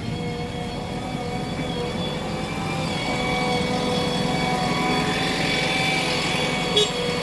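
Heavy diesel machinery running steadily, with a constant whine over the engine noise that grows a little louder midway. There is a short click near the end.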